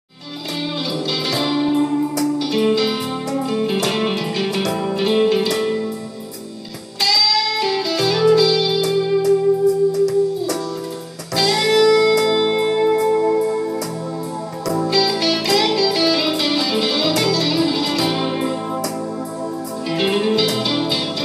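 A 1979 Fender Stratocaster electric guitar played through a Fender Mustang I amplifier, starting abruptly from silence with a run of picked notes. Twice, about 7 and 11 seconds in, a note is bent upward in pitch.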